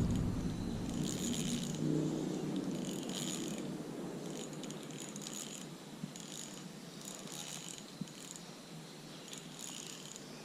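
Fishing reel being cranked to bring in a hooked fish: the reel's gears make a clicking, ratcheting rasp in repeated bursts, about one every second or so.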